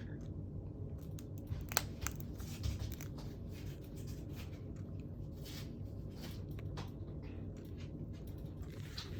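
Cockatoo chewing with its beak: scattered crisp clicks and crunches, the sharpest a little under two seconds in.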